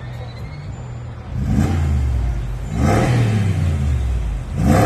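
Mercedes-AMG G63's twin-turbo V8 revving up hard three times as the SUV accelerates, each surge a rising engine note, the last one the loudest.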